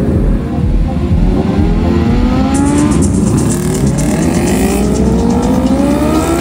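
Several sport motorcycles accelerating away one after another, their engines revving up in overlapping rising notes over a low exhaust rumble.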